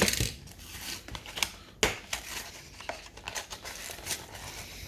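Plastic blister packaging and card backing crinkling and crackling as a diecast toy car's package is handled and torn open, with irregular sharp cracks, the loudest right at the start and about two seconds in.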